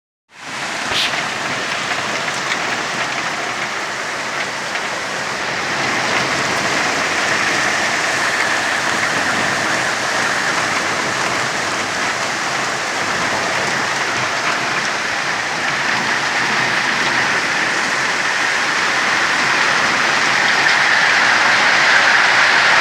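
Heavy rain pouring down steadily, a dense even hiss of drops that slowly grows louder toward the end.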